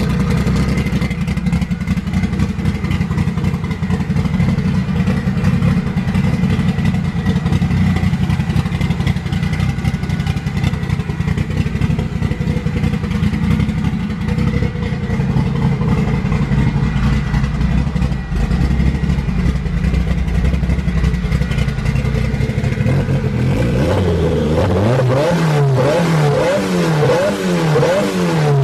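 Turbocharged Toyota 5E-FE four-cylinder engine in a Starlet idling steadily, then revved up and down several times in quick succession over the last few seconds.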